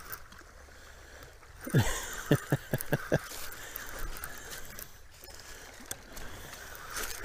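Spinning reel being cranked to bring in a hooked catfish, over steady wind and water noise. About two seconds in comes a short falling swoop, then five quick knocks in a row.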